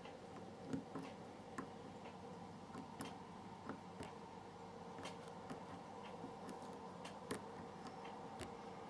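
Faint, irregular metallic clicks and ticks of a lock pick working the pins of a six-pin euro cylinder lock held under tension, during single-pin picking. The clicks come unevenly, a dozen or so, with the loudest about a second in and again near the end.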